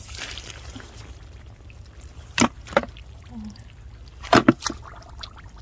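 Shallow muddy water being disturbed: a soft sloshing wash near the start, then a few short, sharp splashes, two about halfway and a quick cluster about a second later.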